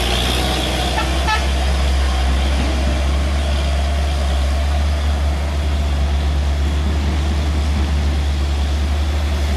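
Diesel engine of a loaded heavy truck running with a steady deep rumble as it pulls slowly uphill. A brief horn toot comes about a second in.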